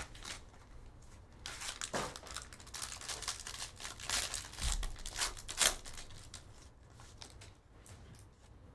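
Foil wrapper of a Panini Crown Royale trading-card pack crinkling and tearing as it is ripped open by hand: a quick run of crackles, loudest about five and a half seconds in, then dying away.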